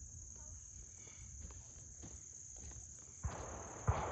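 Field insects trilling steadily at a high pitch. About three seconds in, a rustling noise starts, with a knock near the end.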